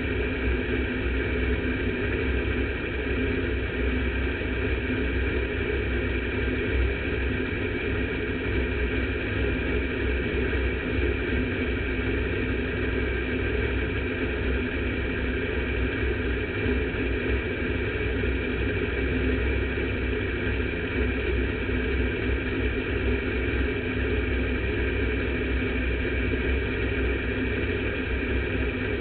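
Sport modified race car's engine idling steadily, heard from inside the cockpit, with no revving.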